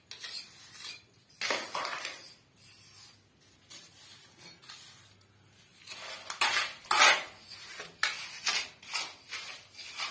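Mason's steel trowel scraping and clinking against a metal mortar pan and wet cement in a series of irregular strokes, busier in the second half.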